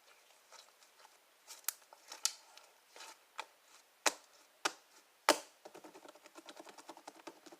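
Slime being handled and squished by hand, giving scattered sharp clicks and pops, then a quick run of small crackling clicks near the end.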